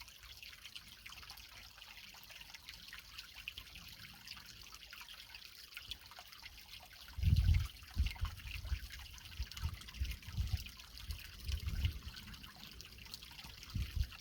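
Shallow creek water trickling and splashing over rocks, a steady high hiss full of tiny splashes. About halfway through, irregular low thumps and rumbles start coming in and are the loudest thing heard.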